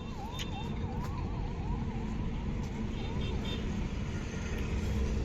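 Electronic siren sounding in a fast repeating yelp, fading out about three and a half seconds in, over steady traffic noise.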